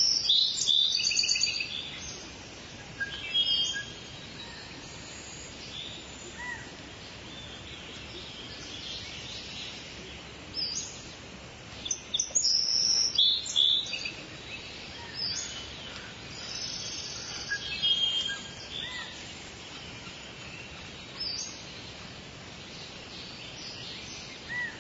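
Birds chirping and calling in short high bursts, busiest at the start, about halfway through and again a little later, over a steady background hiss.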